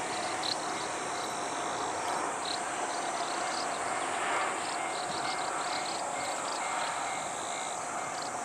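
Steady outdoor background hiss with insects chirping on and off in short high bursts.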